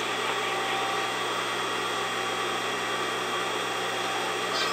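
Industrial straight-stitch sewing machine's motor running steadily with a constant hum while the needle is not stitching.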